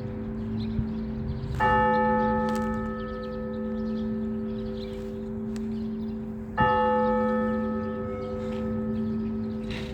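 Orthodox church bell tolled for a service, struck twice about five seconds apart, each blow ringing on and dying away over the steady hum of the bell. The slow, even single strikes are the pattern of the blagovest, the tolling that calls people to the service.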